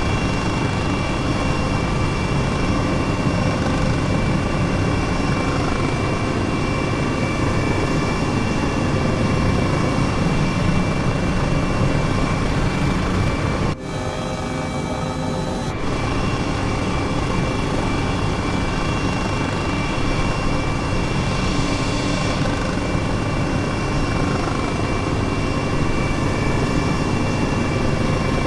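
Airbus helicopter running steadily: a continuous rotor and engine rumble with a steady high turbine whine above it. The sound drops briefly about halfway through.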